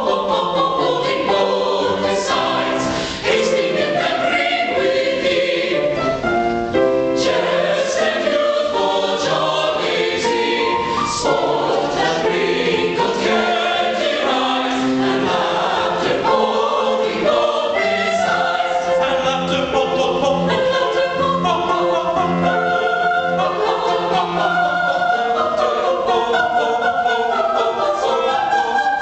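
Chamber choir singing in harmony, several voice parts moving together, with the singers' consonants landing crisply together.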